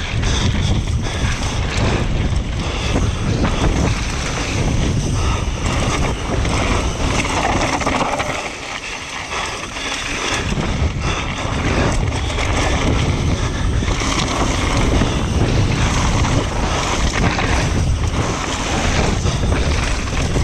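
Wind rushing over an action camera's microphone during a fast downhill mountain bike descent, with the tyres rolling over dirt and gravel and the bike rattling and knocking over bumps. The rush eases briefly about eight seconds in, then builds again.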